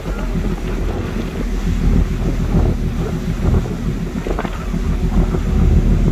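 Wind buffeting the microphone on a tour boat, over the steady hum of the boat's engine and the rush of churning water in tidal whirlpools.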